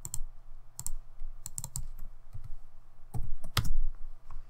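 Computer keyboard keys pressed in short separate strokes, a few at a time in small clusters. The loudest strokes come about three and a half seconds in.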